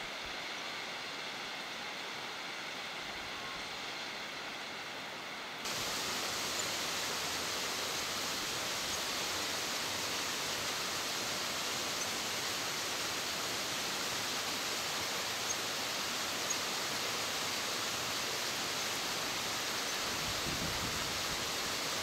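Steady rush of a tall waterfall's falling water. It jumps louder and brighter about six seconds in, then holds steady.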